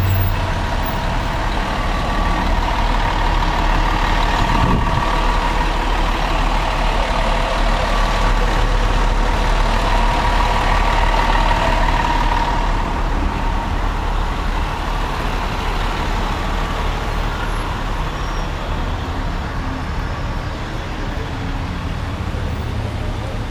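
Heavy truck engine running steadily amid city street traffic, with a brief knock about five seconds in.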